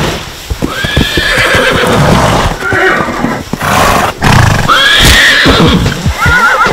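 Recorded horse whinnies, several in a row, over a clatter of short knocks like hooves.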